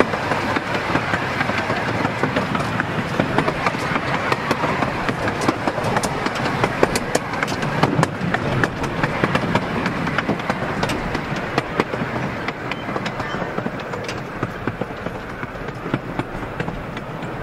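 Open carriages of a 12¼-inch gauge miniature railway train running along the track, a steady rolling rumble with the wheels clicking over the rail joints.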